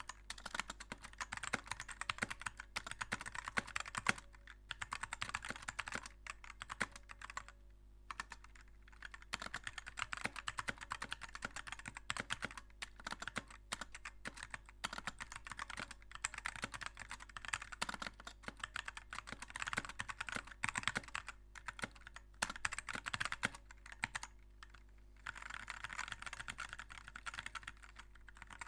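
Fast continuous typing on a Magegee budget mechanical keyboard with linear red switches, modded with foam and tape inside the case: a dense stream of keystrokes, with a few short pauses.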